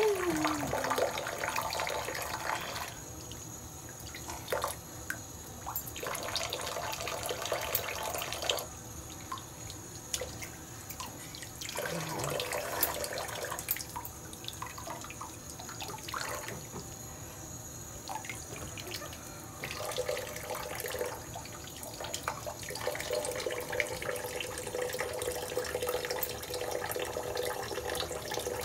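Water running and splashing in a bathroom sink, coming and going in stretches of a few seconds.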